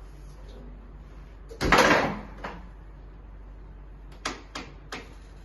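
Chiropractic adjustment on a treatment table: a loud thud lasting about half a second, a fainter click just after, then three quick sharp clicks about two seconds later.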